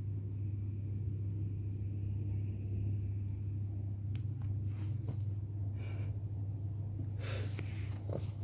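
Sleeping dog snoring, a steady low rumble, with a few soft clicks and rustles in the second half.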